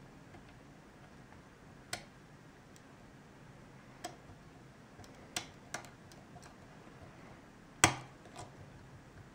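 A hook pick and tension bar working the pins of an ASSA oval pin-tumbler cylinder: scattered sharp clicks, irregularly spaced, the loudest a little under eight seconds in.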